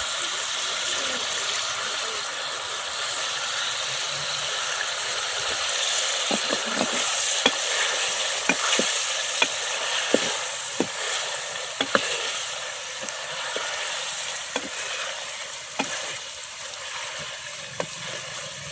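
Chicken, potatoes and masala sizzling in a pot as they are sautéed (bhuna) so the spices cook into the chicken. From about six seconds in, a spoon stirring adds scattered sharp clicks and knocks against the pot.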